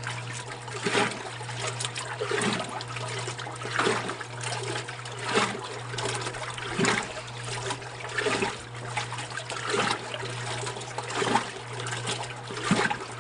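Old Kenmore wringer washing machine running: a steady motor hum, with the water in the tub swishing in a regular rhythm about every second and a half, and water trickling as rags are wrung.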